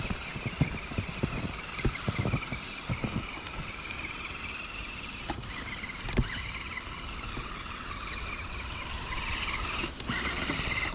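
Small electric motor and gearbox of an RC crawler truck whining steadily, with scattered short knocks and crunches in the first few seconds.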